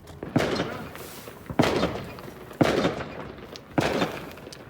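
Fireworks going off: four sharp bangs about a second apart, each trailing off in a short echo.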